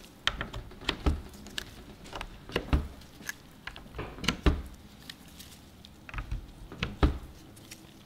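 Empty plastic lip balm tubes clicking and tapping as they are pushed one at a time into the holes of a plastic lip balm flood tray: a string of short, irregular taps, roughly one or two a second.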